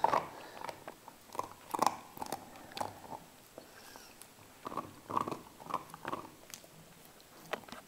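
Dog gnawing a bone held between its front paws: irregular crunching bites, some single and some in quick clusters, with short pauses between.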